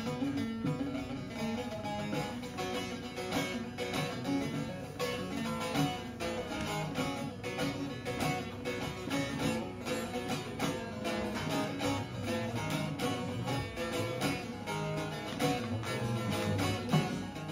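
Bağlama (Turkish long-necked lute) playing an instrumental passage of quick, closely spaced plucked notes.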